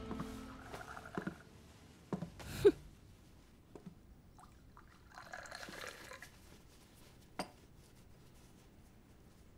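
Background music fading out, then a few scattered light clicks and knocks in a quiet room, the loudest a sharp click a little over two and a half seconds in, with a brief rustle around five to six seconds.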